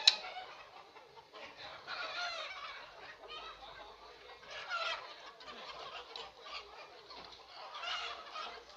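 Chickens clucking, many short calls coming on and off, with a sharp click right at the start.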